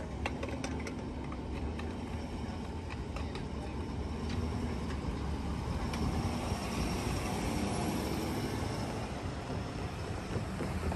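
Ambulance driving across the railroad tracks and pulling away: a steady rumble of engine and tyres.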